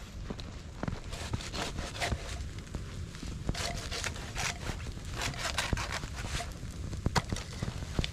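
Large wood campfire crackling, with irregular sharp pops over a low steady rumble.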